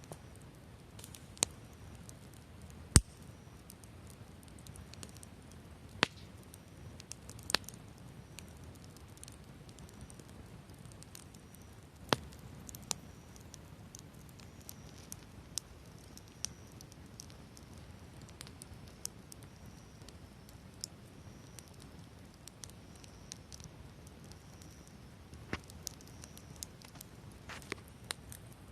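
Wood fire crackling, with occasional sharp pops from the burning wood. Insects chirp in a high, repeated call of about one pulse a second through the middle stretch.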